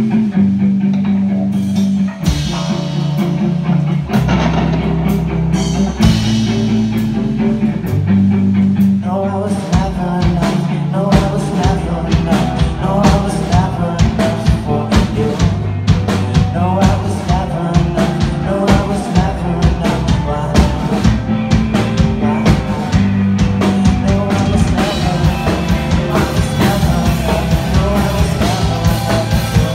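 Pop-punk band playing live: electric guitars and bass hold chords, then the full drum kit comes in hard about nine seconds in and the band plays on at full volume.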